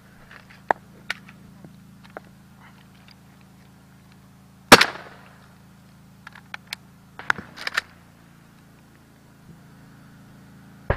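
Gunfire: one loud, sharp gunshot about halfway through with an echoing tail, among scattered fainter cracks and clicks, some in quick clusters later on.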